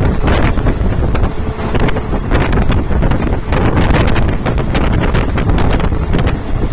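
Wind buffeting the microphone from inside a moving passenger train coach, over the steady rumble of the running train. There is a constant crackle of gusts against the microphone.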